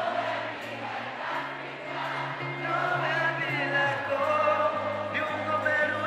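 Live band music: held bass notes under voices singing, with the concert crowd singing along with the band.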